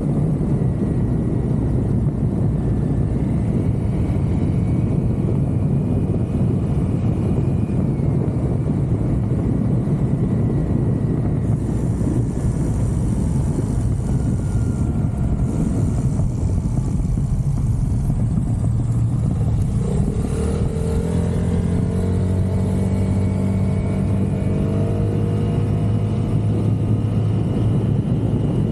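Touring motorcycle cruising at road speed: a steady, heavy rush of wind across the microphone over the engine. About twenty seconds in, the engine's note comes through more clearly as a steady hum with overtones.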